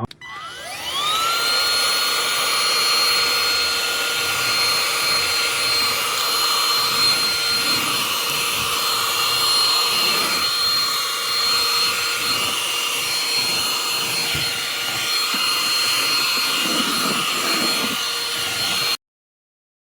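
eufy HomeVac H11 cordless handheld vacuum switched on: its motor whine rises over about a second to a steady high pitch, runs steadily with airflow hiss, and stops abruptly near the end.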